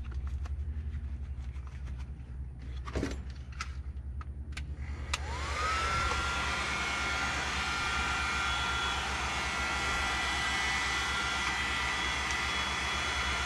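Heat gun switched on with a click about five seconds in, its fan spinning up with a rising whine and then blowing steadily, heating the milk-jug plastic soft for molding. A few light taps and clicks come before it.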